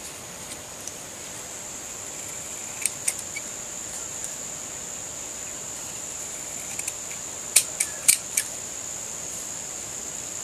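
Scissors snipping through a small piece of paper card: a few short, sharp snips, two about three seconds in and a quick run of four around eight seconds in, over a steady high-pitched background tone.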